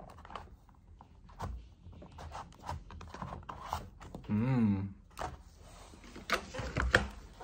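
Cardboard box packaging being handled: scraping and rustling with several small knocks as the camera is worked out of its cardboard insert. About halfway through comes a short wavering hum.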